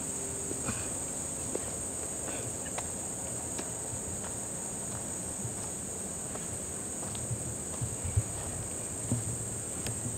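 Crickets chirring in one unbroken, steady high-pitched drone, with a few soft low thumps in the last couple of seconds.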